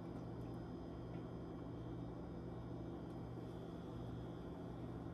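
A steady low hum of background noise, unchanging throughout.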